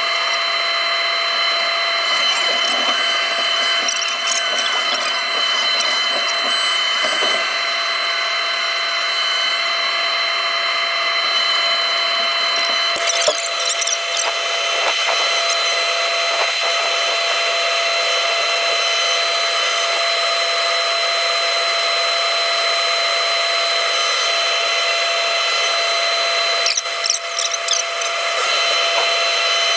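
Takeuchi TB290 excavator running with its hydraulics working: a steady whine of several held tones, with short clattering knocks about thirteen seconds in and again near the end.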